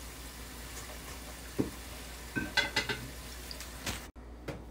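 Hot oil sizzling in a steel pot. A few sharp metal clinks, a wire strainer knocking against the pot and plate, come in the middle, and the sizzle cuts off suddenly near the end.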